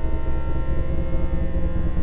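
Eerie ambient drone of many steady, overlapping tones over a deep rumble, a soundscape presented as the sound of Jupiter.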